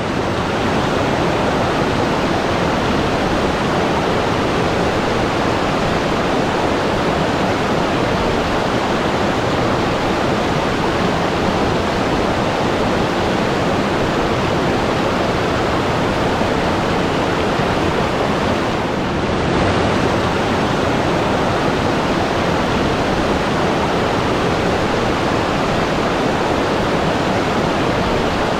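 Steady rush of falling or fast-flowing water, such as a waterfall.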